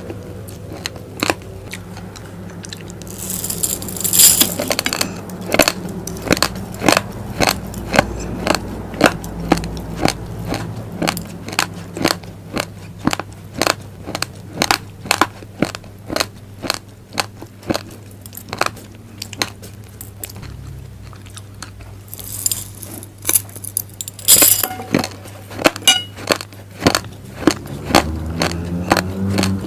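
Raw glutinous rice grains crunched between the teeth in steady chewing, close to the microphone, about two sharp crunches a second. Twice there is a louder crackling burst lasting a second or two.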